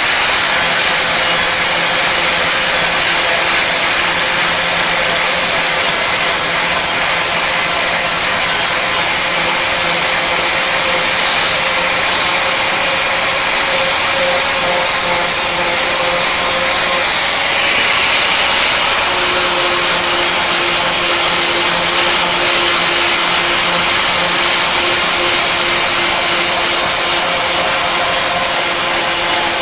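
Angle grinder with a flap wheel running steadily under load, grinding rust and scale off a car's steel wheel arch. Its whine shifts slightly in pitch about two-thirds of the way through.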